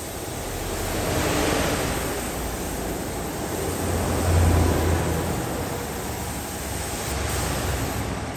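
Gravity-feed paint spray gun hissing steadily as compressed air sprays paint, with a low hum swelling briefly about four seconds in.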